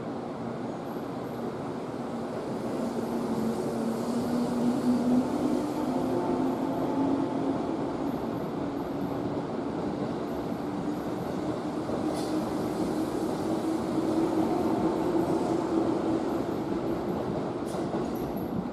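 A JR 415 series 1500-subseries electric train pulling out, its traction motors humming with a tone that rises slowly in pitch as it gathers speed, over the running noise of the cars rolling past. A few sharp clacks come near the end.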